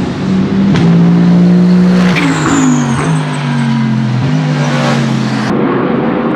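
The twin-turbo Mercedes-AMG V8 of an Aston Martin Vantage GT3 race car running hard as the car goes by at speed. The engine note steps down in pitch about two seconds in and again a little past four seconds.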